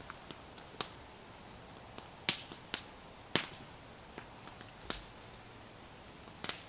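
Small wood campfire crackling: irregular sharp pops and snaps, the loudest three coming between about two and three and a half seconds in.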